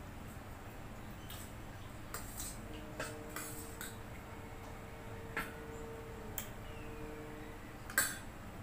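A steel spoon clinking against a stainless steel bowl as dal is scooped out: a handful of separate sharp clinks spread over several seconds, the loudest near the end.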